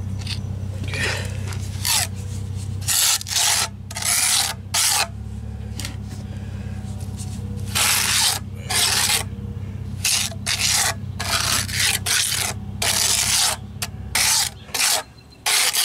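Hand trowel scraping and smearing Rapid Set Cement All patching mix into pitted spots on a precast concrete step, in repeated short irregular strokes that come thick and fast from about three seconds in.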